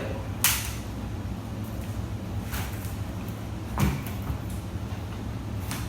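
Four sharp metal clicks and knocks a second or two apart, the loudest about half a second in, from hand tools working on a Ford 4R75E transmission's oil pan as it is being removed, over a steady low hum.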